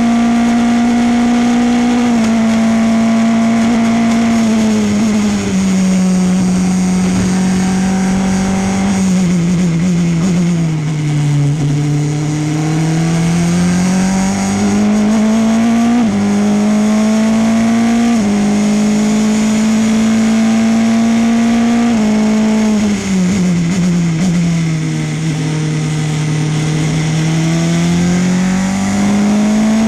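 Onboard sound of a Formula Renault 2.0 race car's naturally aspirated 2.0-litre four-cylinder engine at racing speed. The engine note holds high, sinks twice as the car slows for corners, and climbs again under throttle, with quick upshifts of the sequential gearbox.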